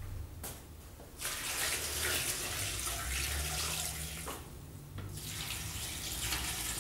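Water poured from a plastic bucket into a large enamel stockpot, in two pours: a longer one starting about a second in, and a shorter one near the end.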